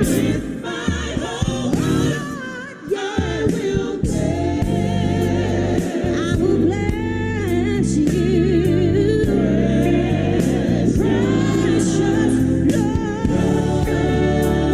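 Gospel music: a choir singing with sustained instrumental chords underneath.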